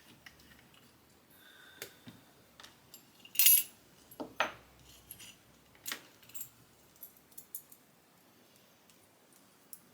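Small metal clipper-blade parts and hand tools clinking and clicking as they are handled, in scattered short strokes, the loudest a bright clink about three and a half seconds in.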